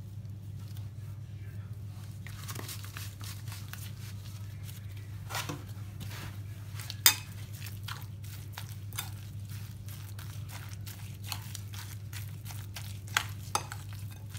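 Metal spoon stirring and mashing a wet filling of corned beef, grated carrot and spring onion in a ceramic bowl, with irregular scrapes and clinks of the spoon against the bowl; the loudest clink comes about seven seconds in. A low steady hum runs underneath.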